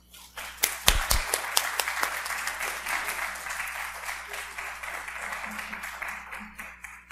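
Audience applauding in a lecture hall, with a few louder claps about a second in, then tapering off and dying away near the end.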